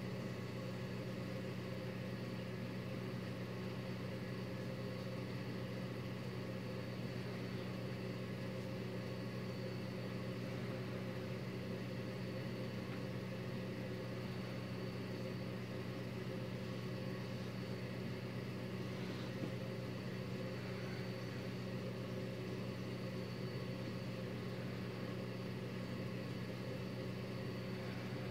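A steady low hum with a light hiss, unchanging in pitch and level.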